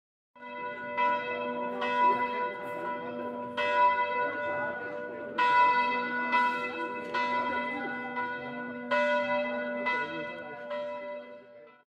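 Several church bells ringing together, with uneven strikes about once a second, each leaving a long ringing hum of several tones. The peal fades out near the end.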